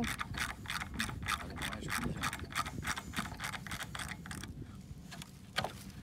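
Hand ratchet clicking rapidly, about six clicks a second, as a fastener is turned out of a wooden gate board by hand; the clicking stops about four and a half seconds in, with one more click near the end.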